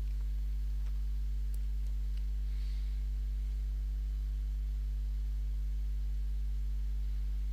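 Steady low electrical hum on the recording: one deep tone with several fainter overtones above it, unchanging throughout.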